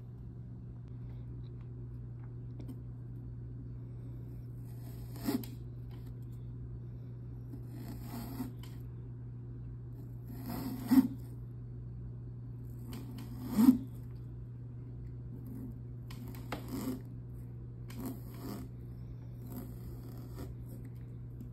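Small serrated knife sawing through pumpkin rind in short strokes, about one every two to three seconds, the strongest near the middle, over a steady low hum.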